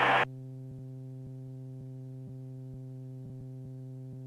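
Steady low hum on the cockpit intercom audio feed, with faint regular ticking, left once the pilot's voice cuts off just after the start; nothing above the low range comes through.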